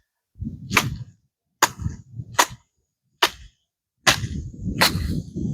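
A series of about six sharp knocks or clicks, roughly a second apart, each with low rumbling handling noise, like objects being tapped, set down or handled close to the microphone.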